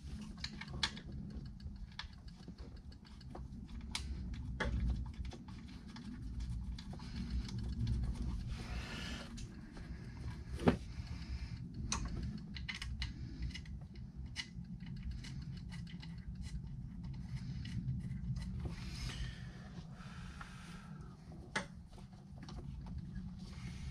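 Small clicks and rattles of wires and a plastic connector being handled and worked loose by hand, with a couple of brief rustling bursts, over a steady low hum.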